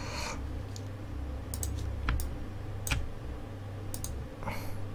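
A few scattered, sharp clicks of a computer mouse and keyboard, over a low steady hum.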